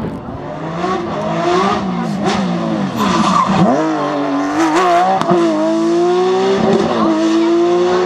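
Porsche 911 rally car's flat-six engine at high revs, its pitch dropping sharply as it slows about three and a half seconds in, then climbing again as it accelerates away, with some tyre squeal.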